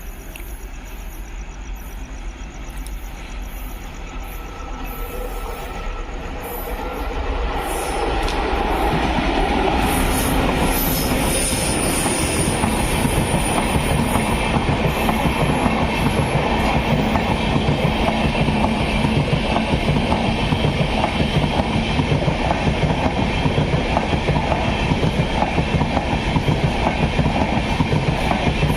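Indian Railways train approaching and passing close by on the track: it grows louder over the first eight seconds, then gives a steady rumble and rapid clatter of wheels on the rails, with a thin high squeal of wheels briefly around twelve seconds in.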